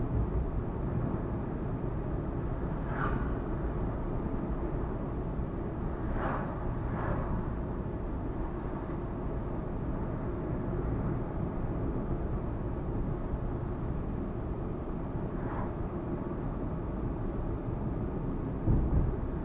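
Steady rumble of road and engine noise from a vehicle being driven, with a few brief faint higher sounds and one low thump near the end.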